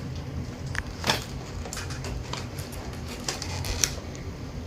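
Packaging of a toy cash register being handled during unboxing: scattered light clicks and rustles, with a few sharper clicks about a second in and again near the end.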